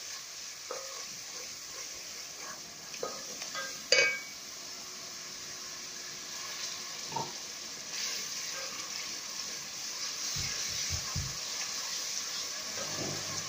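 Spice masala of browned onion, ginger-garlic paste and ground spices sizzling in oil in a pot while being fried down with a little water. A wooden spoon stirs it, scraping and knocking against the pot, loudest about four seconds in, with a few dull thumps near the end.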